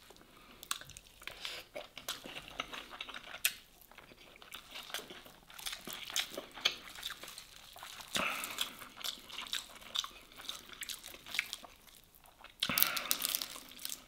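Close-miked eating sounds: wet chewing with lip smacks and small mouth clicks as grilled fish and rice are eaten by hand. A louder stretch of crunching comes near the end.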